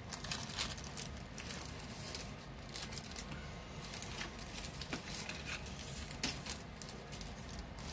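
Small plastic parts bag crinkling and rustling as it is handled, in scattered short crackles and light clicks.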